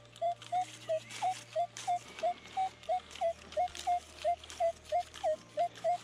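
Minelab Equinox 800 metal detector beeping rapidly and repeatedly, about three short mid-pitched tones a second, as its coil is swept over a partly dug hole. The repeated signal means a metal target is still in the ground, and the sound is getting stronger.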